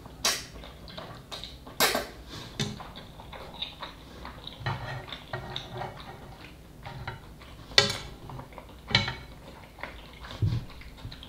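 Eating instant noodle soup: slurping noodles and chewing, with chopsticks and a wooden spoon knocking against the saucepan in a few sharp clicks, the loudest about eight seconds in.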